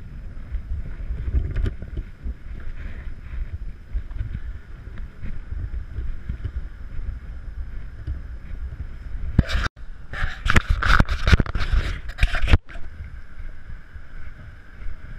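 Wind rumbling on the camera microphone on a ship's open deck, a steady low rush. About two-thirds of the way through it turns louder and harsher for roughly three seconds, with two brief dropouts, before settling back.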